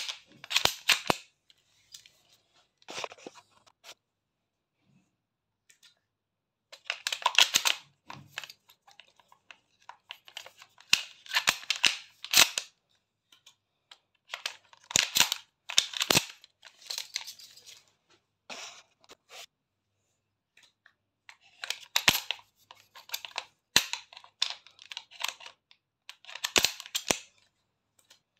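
Shotgun shells being pushed one after another into the magazine tube through the loading port: clusters of sharp clicks and scrapes every few seconds, with short pauses between the groups.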